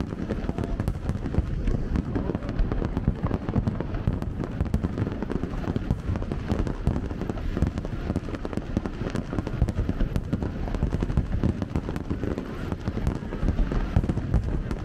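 Dense barrage of aerial fireworks: overlapping low booms from shells bursting, with a continuous scatter of crackles and pops, keeping on without a pause.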